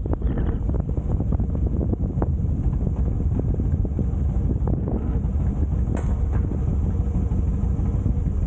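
Harley-Davidson FLSTC Heritage Softail Classic V-twin running under way, a steady low rumble mixed with heavy wind buffeting on the microphone.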